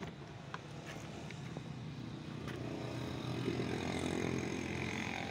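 A motor vehicle's engine running, growing louder over the first few seconds and then holding steady, with a few light clicks in the first couple of seconds.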